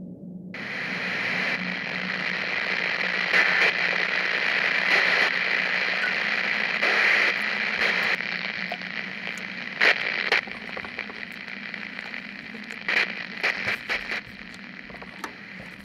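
Radio static: a steady hiss that comes in about half a second in, swells and then slowly thins, broken by scattered sharp crackles that grow sparser toward the end.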